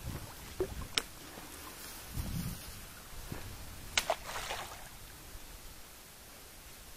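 Water splashing around a shot teal lying on the lake surface while it is being pulled in, with sharp clicks about a second and four seconds in.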